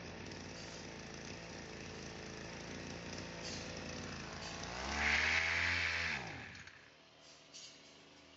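Kyoritsu SRE235 brush cutter's small two-stroke engine running at idle, revved up once about five seconds in, then winding down and stopping. A small click follows near the end.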